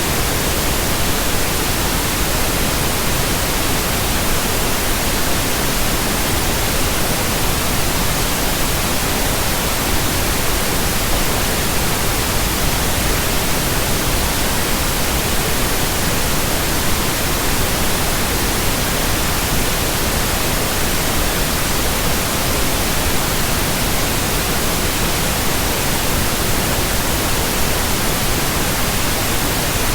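Steady pink noise: an even, unchanging hiss, used as a sleep and relaxation sound.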